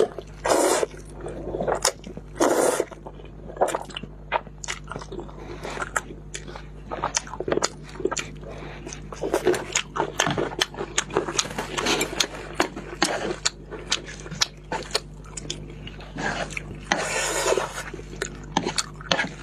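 Close-miked noodle eating: loud slurps of spicy instant noodles near the start and again near the end, with chewing and many short wet mouth clicks in between.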